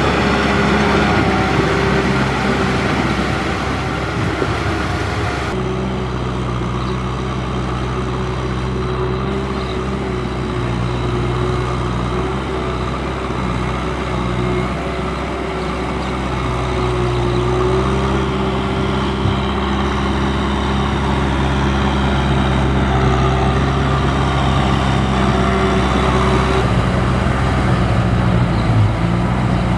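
Tractor diesel engine running steadily under load, with an abrupt change in the sound about five seconds in and again near the end.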